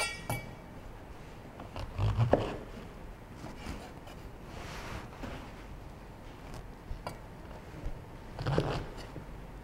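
Cleaver cutting the root base off a cluster of white beech mushrooms on a wooden cutting board. A few knocks of the blade on the board, the loudest about two seconds in and another group near the end, with small scraping clicks between.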